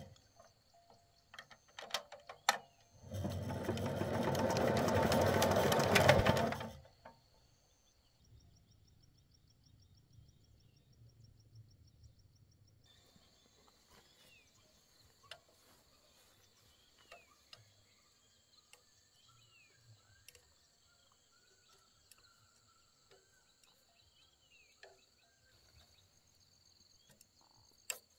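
A motorised workshop tool runs in a loud burst of about four seconds, after a few knocks and clicks. After a quiet spell, insects trill faintly and steadily, with scattered short bird chirps.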